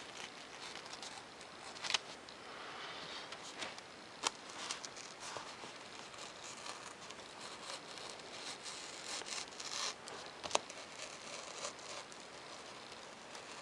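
Hobby razor knife drawn along a curved line through a paper plan sheet: a faint, scratchy scraping and rustling of paper, broken by three sharp ticks.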